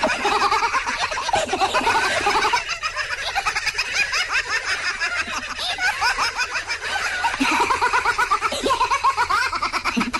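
High-pitched laughing and giggling in quick, choppy bursts, easing off around three seconds in and picking up again from about seven seconds.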